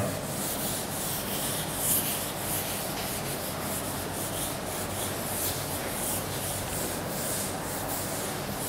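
A chalkboard eraser wiped briskly across a chalkboard, clearing chalk writing in a steady run of back-and-forth rubbing strokes.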